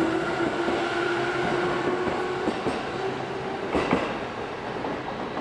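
JR East E257-series electric train pulling away along the platform: a steady motor whine over wheel-and-rail running noise, slowly fading, with a few sharp clacks of wheels over rail joints about four seconds in.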